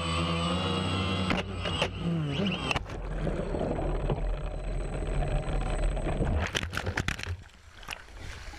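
Quadcopter drone's motors humming, then a hit as it plunges into the water about a second and a half in; the motor sound drops away and gives way to muffled churning water and bubbles, with a few clicks near the end.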